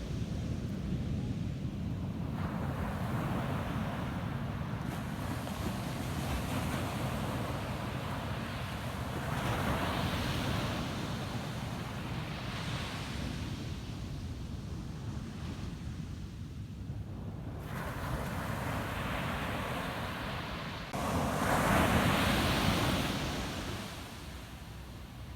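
Ocean waves breaking and washing up a sandy beach in repeated surges, the loudest crashing in suddenly near the end and fading away. A low wind rumble on the microphone runs underneath.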